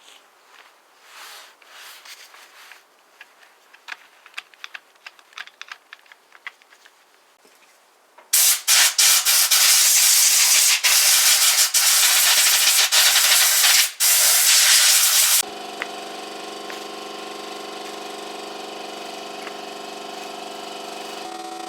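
Faint clicks of handling, then about seven seconds of loud, steady, pressurized hissing, broken by a few short gaps. The hissing stops suddenly and gives way to a steady hum of several tones.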